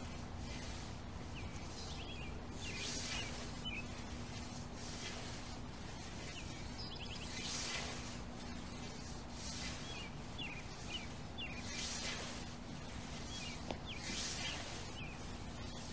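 Scythe blade swishing through lawn grass, one stroke about every two seconds, with birds chirping between the strokes.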